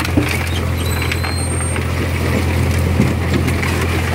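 Engines of a Red Rhino 5000 concrete crusher and its loader running steadily with a low drone. There are a few sharp knocks of concrete rubble being tipped into the hopper and crushed, one just after the start and one about three seconds in.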